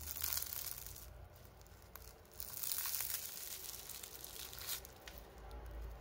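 The crisp, flaky crust of a sugar-coated cruffin, made from croissant dough, crackling as it is squeezed and torn apart by hand. It comes in two spells: a short one at the start and a longer, louder one from about two and a half to nearly five seconds in.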